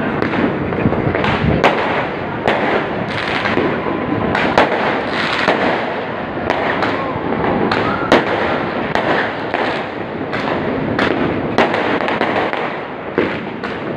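New Year's Eve fireworks and firecrackers going off all over a city at once. They make a continuous crackling din with frequent sharper bangs, about one or two a second.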